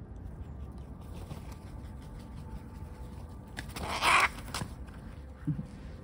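A single short, harsh call from a hooded crow about four seconds in, over a low, steady outdoor background.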